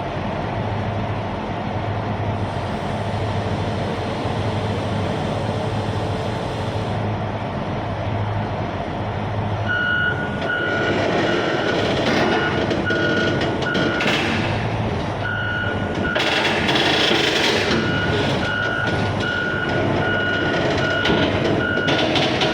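Heavy machinery running steadily, with a low throb about once a second at first. From about ten seconds in, a travel or backup alarm beeps roughly twice a second, as a big Hitachi ZX870-5G excavator moves during loading onto a trailer.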